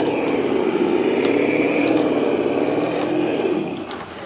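Electric motor and gear drivetrain of a 1:10 scale RC rock crawler whining under load as it climbs over rubble, the pitch wavering up and down with the throttle. It dies away near the end, with a few faint clicks along the way.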